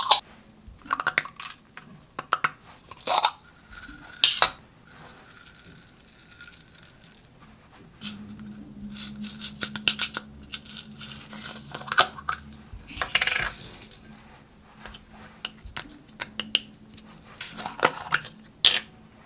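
Small plastic containers of slime mix-ins clicking and rattling as they are opened, shaken and emptied into a glass bowl of loose glitter: a run of sharp clicks and rattles, with a longer pouring rattle a little past halfway.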